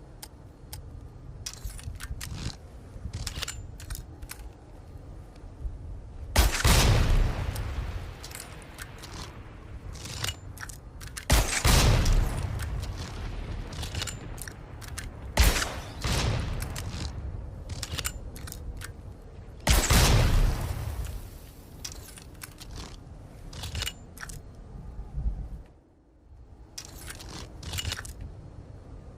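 Blast-crossbow sound effect fired over and over: sudden loud blasts, each fading out over a second or two, with lighter clicks and smaller shots in between. The four loudest come about every four to five seconds.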